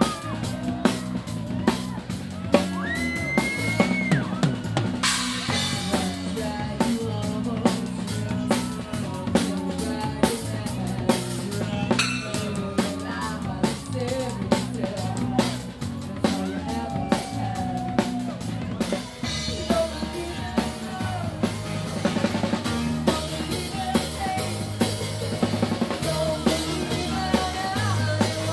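Loud music over a sound system: a steady drum kit beat with kick, snare and rimshot hits over a heavy bass line.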